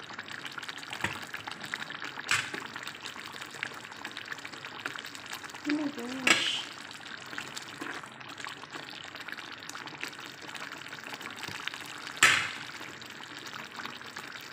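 Alamang (tiny shrimp) with tomato and onion bubbling and sizzling in an aluminium pot as it is stirred with a metal spoon. The spoon knocks sharply against the pot three times, about two, six and twelve seconds in.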